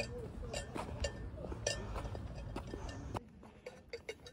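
Footsteps on a paved sidewalk, about two steps a second, over a steady low outdoor rumble. About three seconds in, the sound cuts to a quieter room with a few light clinks from a handheld tumbler.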